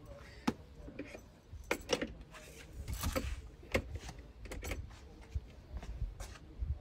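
Irregular clicks, knocks and short scrapes from a toy RC crawler truck being dragged on a tow cord over concrete paving slabs and loose gravel.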